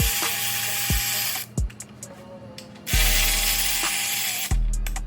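Cordless power tool, an electric ratchet or drill, run in several short trigger pulls of a second or so each while backing bolts off an engine. Each pull is a motor whine with a steady pitch that starts and stops abruptly.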